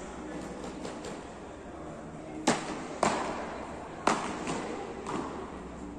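Beach tennis paddles striking the ball in a quick volley exchange: three sharp pops about half a second to a second apart, then a fainter fourth, each echoing in a large hall.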